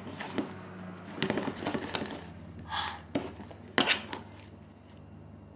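Fluffy glue-and-borax slime being worked and squished, giving irregular sticky clicks and short squelching crackles, with a louder squelch about two-thirds of the way in. The slime is still a little sticky, not yet fully set.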